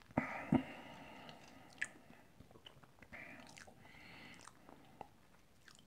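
Faint mouth sounds of a man sipping whisky and working it over his palate: small wet smacks and tongue clicks, the sharpest near the start and about two seconds in, with soft hissing breaths between.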